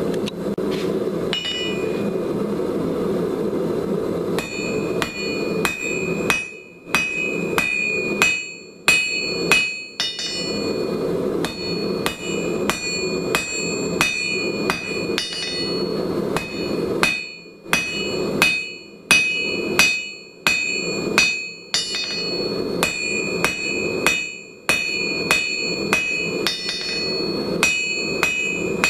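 Hand hammer striking red-hot coil-spring steel on an anvil, forging the point of a cold chisel: a long run of sharp blows, about one to two a second, each leaving a high ring from the anvil, in flurries with short pauses between them. A steady low roar runs underneath.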